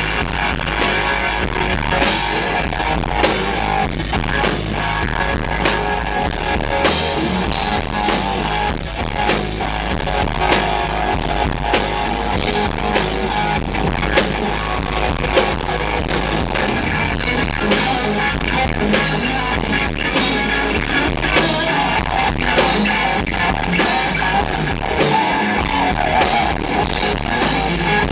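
Live rock band playing loud: electric guitars over a drum kit, with the low end and kick drums distorting in the camera's microphone from close to the stage.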